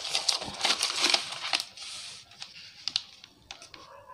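Sheets of printed paper rustling as they are turned and shifted, with a scatter of small clicks and taps; loudest in the first two seconds, then softer clicks.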